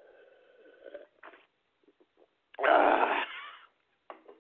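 A man breathing hard and wheezing into a close microphone while short of breath from agitation. There are faint breaths and small mouth clicks, then one loud rasping breath about halfway through.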